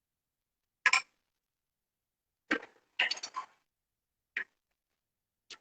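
About five short clinks and knocks of kitchenware, spaced irregularly with silence between them.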